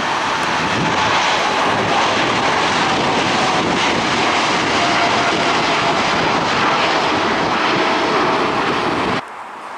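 Boeing 747-8's four GEnx jet engines at takeoff thrust as it lifts off and climbs, a loud, steady roar with a faint whine that slowly falls in pitch. It cuts off suddenly near the end.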